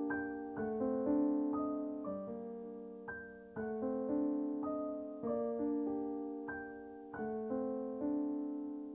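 Background music: a slow solo piano piece, single notes and chords struck and left to ring.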